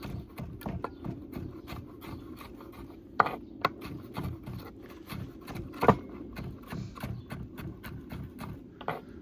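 Kitchen knife chopping Scotch bonnet pepper finely on a cutting board: a quick, even run of blade taps, about four or five a second, with a few louder knocks.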